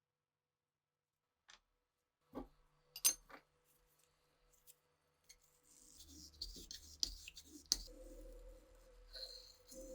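Hand-work on old pistol parts: a few sharp clicks and clinks, the loudest about three seconds in, then steady scraping and rubbing broken by more sharp clicks.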